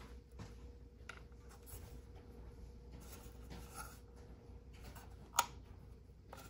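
Faint rubbing and light clicks of a hard drive being handled and pressed into a NAS drive tray, with one sharp click about five seconds in.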